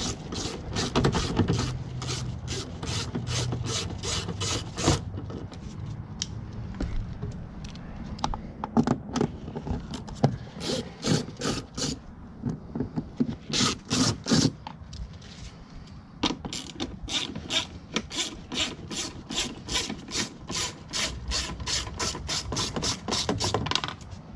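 Hand ratchet with a 7 mm socket clicking in quick, even runs of about three clicks a second as it backs out door-panel screws, with a few short pauses between runs.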